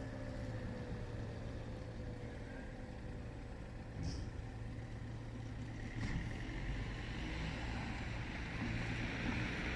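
Fire engine running with a steady low engine hum, getting louder towards the end as it moves out with its blue lights on, with a brief sharp sound about four seconds in.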